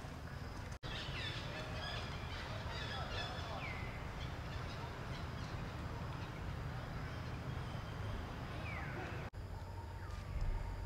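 Outdoor ambience: a steady low rumble with scattered short bird chirps. The sound cuts out briefly about a second in and again near the end.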